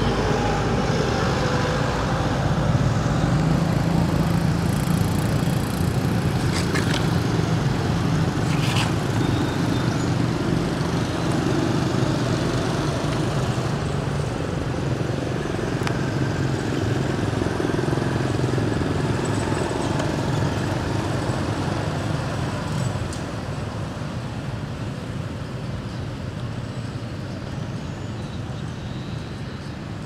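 Steady low rumble of motor traffic, easing slightly in the last few seconds.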